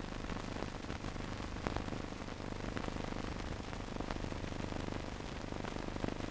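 Steady hiss with a low hum and scattered crackles and clicks: the surface noise of an old newsreel film soundtrack, with no clear sound from the scene beneath it.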